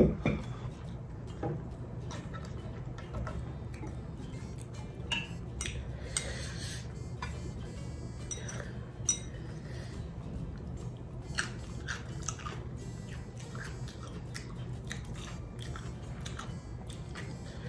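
Eating sounds: a person chewing food, with scattered clicks and clinks of utensils against dishes and a sharp knock right at the start.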